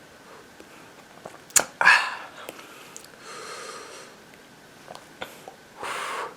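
A man's breathing and sniffing as he reacts to the burn of a hot chili pepper. There is a sharp sniff or breath about two seconds in, a longer soft exhale around three and a half seconds, and a harder breath near the end.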